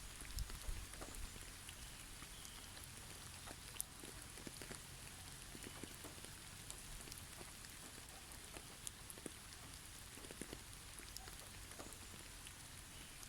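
Water drops pattering and ticking irregularly over a soft, steady hiss, like rain or melting snow dripping from trees.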